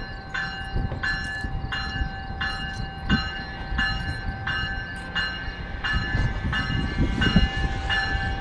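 GO Transit commuter train pulling out with its bell ringing in a steady rhythm, a little under two strokes a second. The low rumble of the moving train grows as the cab car draws near.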